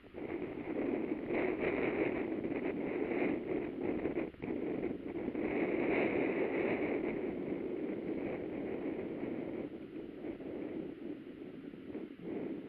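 Bicycle on the move: wind rushing over the microphone and the tyres rolling, a steady rumbling hiss that swells around two and six seconds in.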